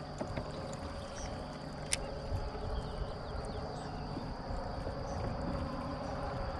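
Kayak on the water: a steady wash of water and hull noise with scattered light knocks, and one sharp click about two seconds in.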